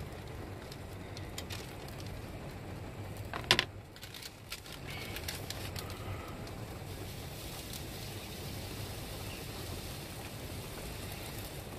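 A pizza slice and baking paper being handled and flipped in a frying pan on a gas hob: light clicks and rustles over a steady low background, with one sharp knock about three and a half seconds in.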